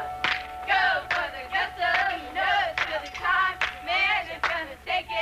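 Soundtrack music: singing voices over a backing with held tones and sharp percussive hits.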